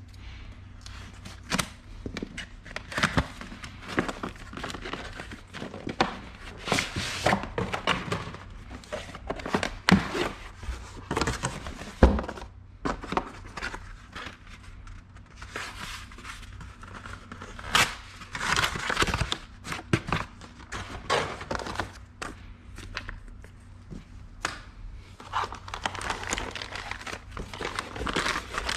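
Unboxing noise: packaging being handled, with plastic and paper crinkling and rustling amid irregular clicks, knocks and a few thuds, the heaviest about twelve seconds in.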